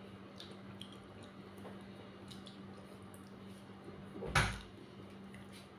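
Quiet eating noises from a meal at a plate: faint clicks and small wet sounds over a steady low hum, with one dull knock about four seconds in.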